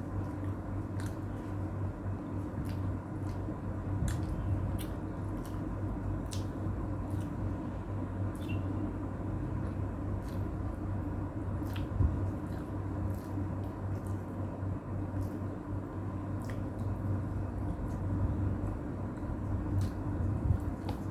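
A person eating close to the microphone: wet chewing and lip smacks, with small sharp clicks about once a second, over a steady low hum.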